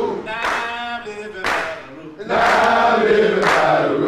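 A group of men chanting in unison, with a sharp beat about once a second. It gets louder a little past halfway.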